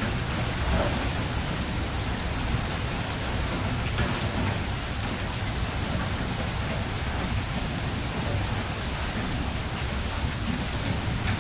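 Steady rain falling in a thunderstorm, an even hiss with a steady low rumble underneath and a few faint ticks.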